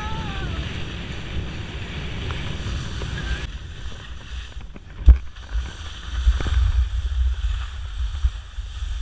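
Wind buffeting a body-worn camera's microphone, with skis scraping over soft spring snow on a downhill run. The high hiss drops away about three and a half seconds in, a sharp knock comes about five seconds in, and gusty low rumble follows.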